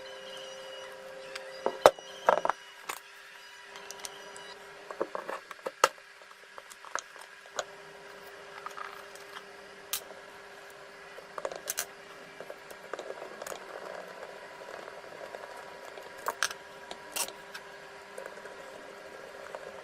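Scattered sharp clicks, taps and knocks of metal parts and hand tools being handled during work on an electric drill, over a faint steady hum; the loudest knocks come about two seconds in.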